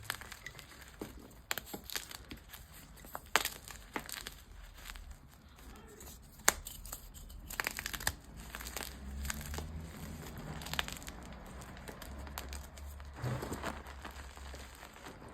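Dyed gym chalk being crunched and crumbled by hand: irregular crisp cracks and crackles, some sharp single snaps, others in short clusters.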